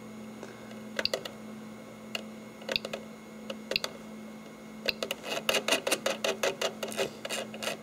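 Rotary encoder knob on a 3D printer's LCD controller clicking through its detents: a few separate clicks, then a quick run of clicks, about five a second, as the nozzle temperature is dialled down to turn the hot end off. A steady low hum runs underneath.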